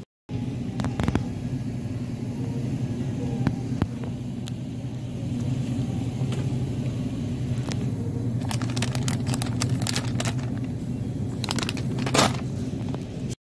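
Steady low hum of a supermarket's background, with scattered light clicks and knocks from a handheld plastic shopping basket and goods being handled, busiest in the last few seconds.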